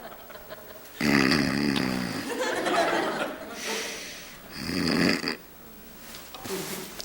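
A man snoring loudly in his sleep: two long snores, the first about a second in and the second around the five-second mark.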